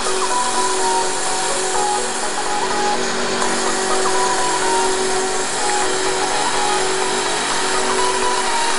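Double-spindle CNC wood lathe running, its cutters turning two wooden spindles at once: a steady cutting noise with constant machine tones over it.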